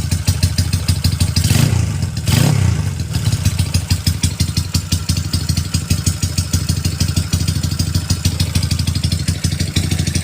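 Honda Wave 125 single-cylinder four-stroke motorcycle with a loud exhaust tuned for a harsh sound rather than power, idling with an even pulsing beat and blipped twice about one and a half to two and a half seconds in.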